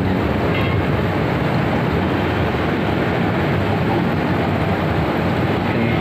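Jacuzzi jets running: a steady, even rush of pump and bubbling, churning water.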